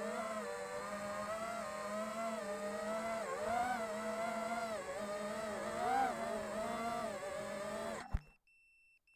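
A five-inch FPV quadcopter's brushless motors and props whine, heard through the drone's own onboard camera, the pitch rising and falling with the throttle. About eight seconds in it comes down into the grass with a sharp thump and the motors stop dead, followed by a few faint short beeps.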